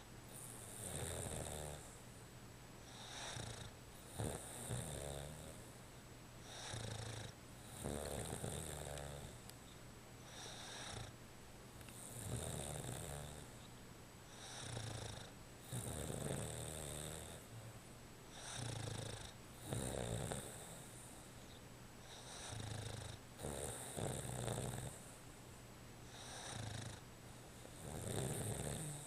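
Boston terrier snoring in his sleep: a rough snore with each breath, coming regularly about every two seconds.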